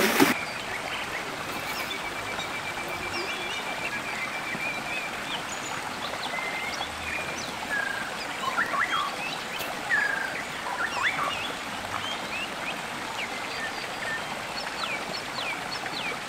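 Shallow rocky stream flowing steadily, with birds chirping and whistling throughout and a short trill in the first few seconds. A few louder splashes come around the middle, as hands feel under the stones in the water.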